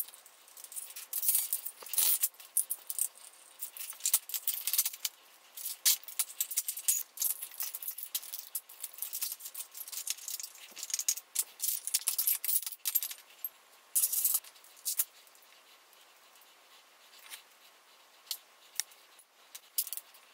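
Metal hand tools and motor parts clicking, clinking and scraping in quick succession as a vacuum cleaner motor is unscrewed and pried apart. The clatter thins to a few scattered clicks after about fifteen seconds.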